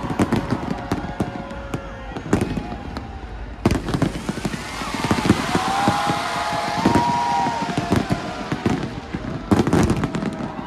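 Fireworks going off: a string of sharp bangs, then a dense stretch of crackling from about four seconds in, and another quick cluster of bangs near the end.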